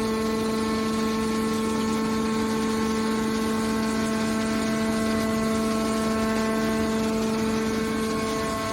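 A hydraulic aluminum can baler running: a steady, unchanging machine hum with a clear pitched tone over a noisy rush.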